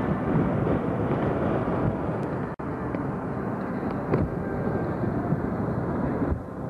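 Road and engine noise heard inside a moving car, a steady rumble and rush. It cuts out for an instant about two and a half seconds in.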